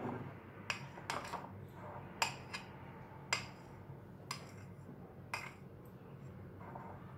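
Metal spoon clinking and scraping against the rim of a drinking glass and a ceramic bowl while thick whipped dalgona coffee is scooped onto milk: a string of light, irregular clicks.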